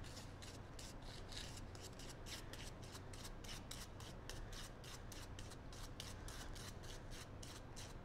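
A glue brush stroking rubber cement onto the edge of a blue foam block: a faint, quick run of soft scratchy brush strokes, about five a second.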